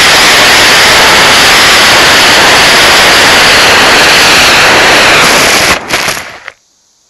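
Loud, steady rush of wind and electric motor noise through the onboard camera of a Hardcore 44 FPV flying wing at speed. About six seconds in it breaks into a few knocks as the wing comes down in the grass, and then only a faint hiss is left.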